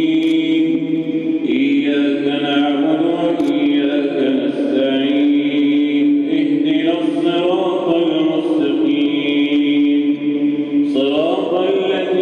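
A man's voice chanting Quran recitation in the melodic tajweed style, with long held notes that glide slowly up and down and a new rising phrase near the end.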